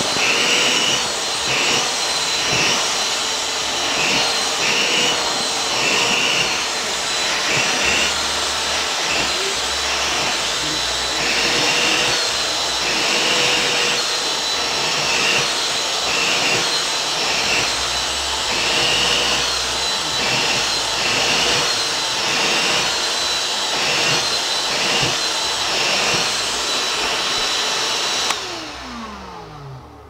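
Vacuum cleaner running with its nozzle drawn over a cat's fur, the sound swelling with each stroke about once a second. Near the end the motor cuts out and its pitch falls as it winds down.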